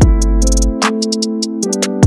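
Music with a steady drum beat over held keyboard chords and bass.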